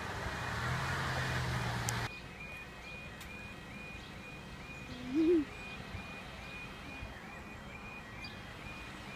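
Level crossing after a train has passed: wind buffeting the microphone over a low hum for about two seconds, cutting off abruptly. Then quiet outdoor ambience with a faint high chirp repeating about twice a second, and one short low sound about five seconds in.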